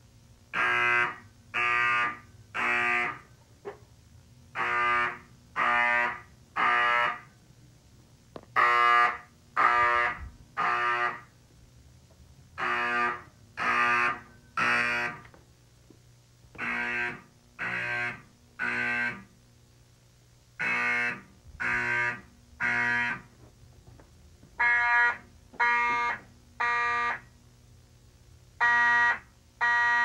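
Several mechanical fire alarm horns sounding together in a temporal-3 pattern: three loud buzzy blasts about a second apart, a short pause, and the group again every four seconds. It is the building evacuation signal, set off by a manual pull station.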